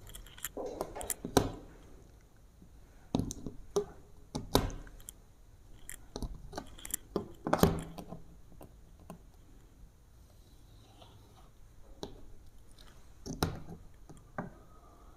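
Marker pen and ruler knocking and scratching on a whiteboard as pattern lines are drawn: scattered sharp taps and clicks at irregular intervals.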